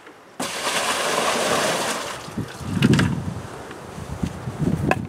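Water pouring and splashing as a plastic bucket is tipped at a plastic barrel, lasting about two seconds. Low gusts of wind on the microphone follow.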